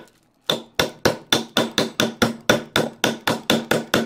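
Hammer tapping rapidly, about four sharp blows a second after a short pause, each with a brief ring, seating wooden handle scales onto brass pins through a full-tang knife's tang.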